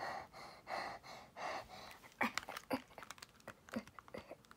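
A few soft breaths, then from about halfway a run of light, quick plastic clicks, three or four a second, from the buttons of a Nintendo Switch Joy-Con being pressed during play.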